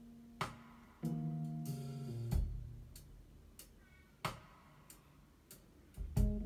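Recorded music played through Yamaha NS-1000 speakers driven by an EL84 push-pull tube amplifier: a sparse instrumental passage with a sharp percussive hit about every two seconds and held guitar-like notes and chords ringing between them.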